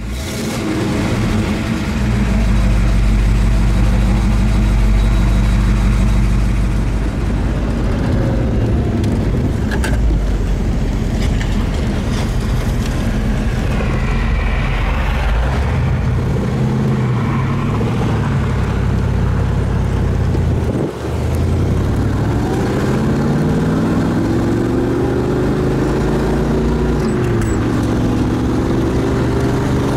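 A 1970 Chevelle SS's LS5 454 big-block V8 running under way, heard from inside the car. About two thirds of the way in the engine note drops away briefly for an upshift, then climbs steadily in pitch as the car accelerates, with another shift and climb near the end.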